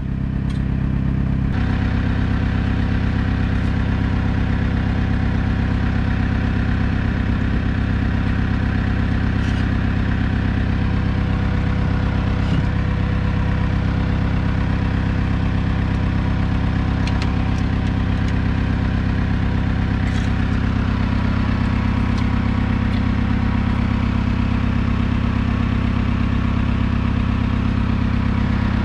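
An engine idling steadily, with a few faint clicks scattered through it.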